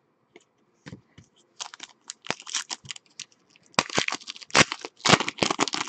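Foil wrapper of a Panini Elite basketball card pack being torn open and crinkled by hand: a run of sharp crackling rips, loudest and densest in the second half.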